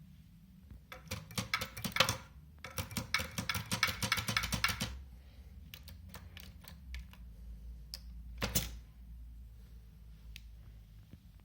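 Bulgarian-made typewriter being typed on: two quick runs of key strikes over about four seconds, then a few scattered keystrokes and one louder clack a little after the middle.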